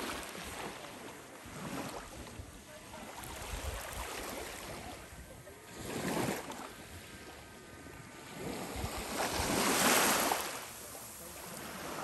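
Small waves washing onto a shallow sandy beach on the Aegean Sea, each swell rising and falling away every few seconds, the biggest one near the end.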